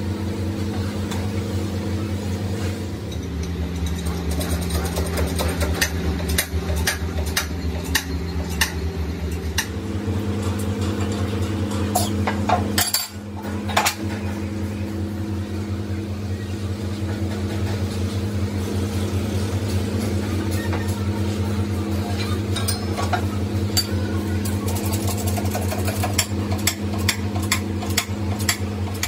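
Metal clinks and taps from a steel crankshaft being handled and worked by hand on its stand, over a steady low hum. The taps come in two runs, one in the first third and one near the end.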